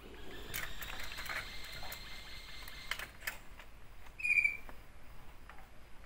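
A brood of bird-of-prey nestlings in the nest: a few light clicks and scuffs, then one short, high squeaky call from a chick about four seconds in.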